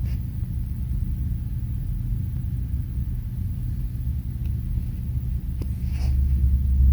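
A steady low rumble that grows slightly louder near the end, with a few faint ticks.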